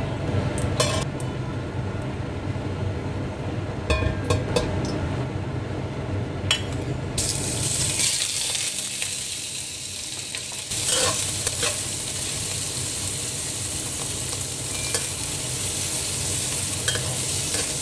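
Sliced pork fat goes into hot oil in a stainless steel wok about seven seconds in and starts sizzling loudly, rendering out its lard. The sizzle goes on steadily while a metal spatula stirs and clinks against the pan. Before that there are a few sharp clicks over a low hum.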